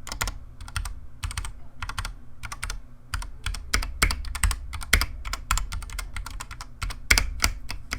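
Ducky One 2 Mini mechanical keyboard with Cherry MX Silver linear switches being typed on: a quick, irregular stream of keystroke clacks, several a second.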